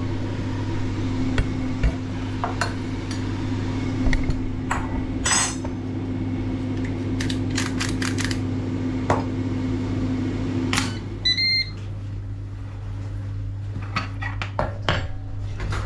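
Utensils clinking against a metal pan and a plate, then a hand pepper mill grinding over the plate about seven seconds in. A steady appliance hum cuts out about eleven seconds in, followed at once by a couple of short electronic beeps.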